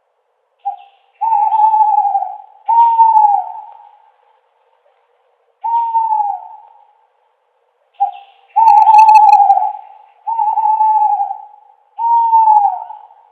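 Owl hooting: a series of loud, single-pitched hoots of about a second each, most falling in pitch at the end. They come in two runs, each opening with a short note followed by three long hoots.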